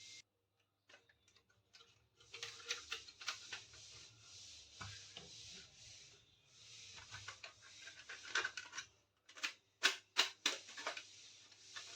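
Small plastic toy kitchen pieces being handled and unpacked: light clicks and taps mixed with soft rustling, with a few sharper clicks near the end.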